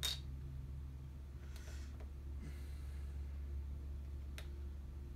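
Small electronic parts being handled and set down on a workbench: a sharp click at the start and a lighter one about four seconds in, with a couple of soft breaths between, over a steady low hum.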